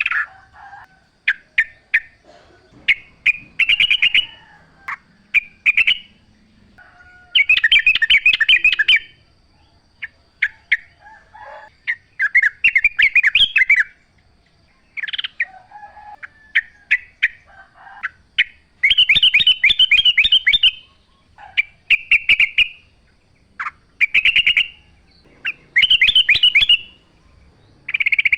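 Yellow-vented bulbul (trucukan) singing: loud phrases of rapid notes, each a second or two long, repeated every few seconds, with short single calls in between.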